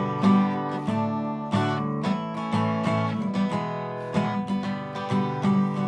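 Acoustic guitar strummed in a steady rhythm, chords ringing between strokes: the instrumental intro of a country song, before the vocals come in.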